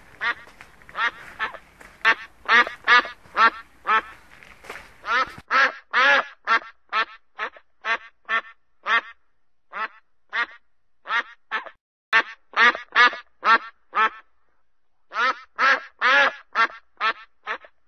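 A rapid run of quacking calls, about three a second, with two short pauses about twelve and fifteen seconds in. A faint hiss beneath the calls stops about five seconds in.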